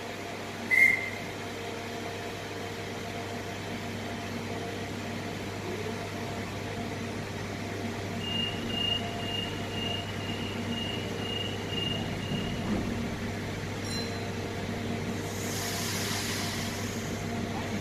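Electric train standing at an underground platform, a steady hum with several level tones. A single beep sounds about a second in, a run of about ten short high beeps, about two a second, follows from about 8 to 13 seconds, and a hiss rises near the end.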